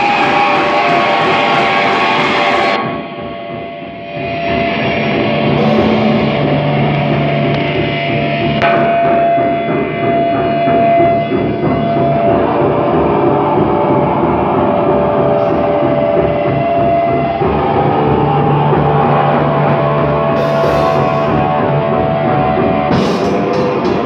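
A post-hardcore band playing loud live: electric guitars with long held notes over a drum kit. The loudness drops briefly about three seconds in, then the full band comes back in.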